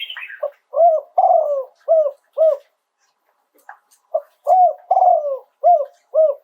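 Spotted dove cooing: two phrases of low, rounded coos, each a run of about five short notes with one longer drawn-out note, separated by a pause of about a second and a half.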